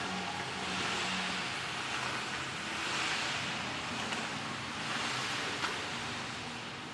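Roar of a stadium crowd cheering while fireworks go off, swelling and easing about every two seconds. A single sharp firework crack comes near the end.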